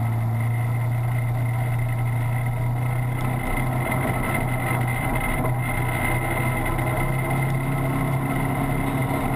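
Side-by-side ATV's engine running as it drives at low speed: a steady low drone with a faint high whine over it.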